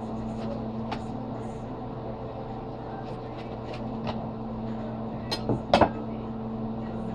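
A steady low hum with several light taps and knocks of a sushi roll and bamboo mat being handled on a wooden cutting board. The loudest is a pair of sharp knocks a little before the end.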